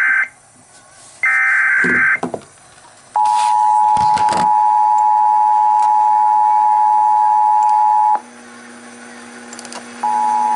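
Emergency Alert System SAME header: the end of one short warbling digital data burst and then a second, a second apart. After a short pause the EAS two-tone attention signal begins, a loud steady dual tone (about 853 and 960 Hz). It breaks off after about five seconds, leaving a low hum, and resumes near the end.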